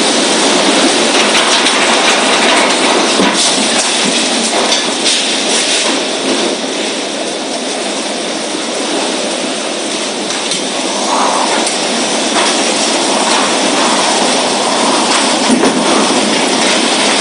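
Tornado winds at close range: a loud, continuous rushing roar, with a few brief knocks in the first several seconds.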